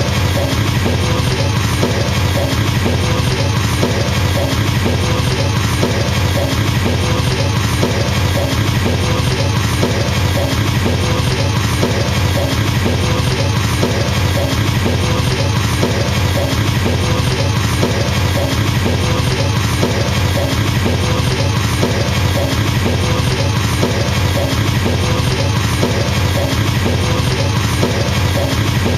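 Drum kit played with a double bass pedal: an unbroken, very fast stream of kick drum strokes, even in loudness, with other drum hits repeating over it, like a machine gun or helicopter rotor.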